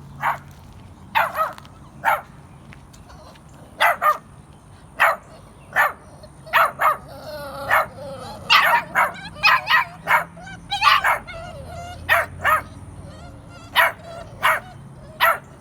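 Pit bull puppies yapping in many short, sharp barks at irregular intervals, a few drawn out into wavering whines.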